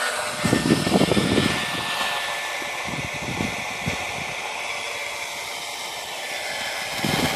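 A 15-year-old 7.2-volt cordless drill used as an outboard motor, running steadily with a whine as it spins an old trolling-motor propeller in the water. There are a few low rumbling bursts about a second in.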